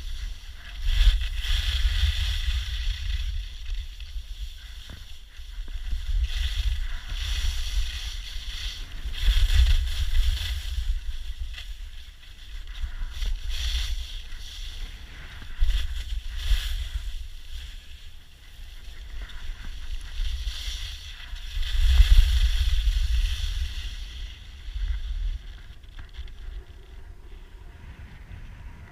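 Skis scraping and hissing over packed snow at speed, with wind buffeting the action camera's microphone as a low rumble; the noise swells and fades every few seconds and dies down near the end.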